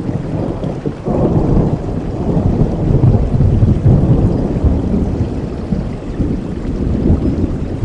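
Thunder in a rainstorm: a low rumble that comes in sharply about a second in and rolls on for several seconds over steady rain.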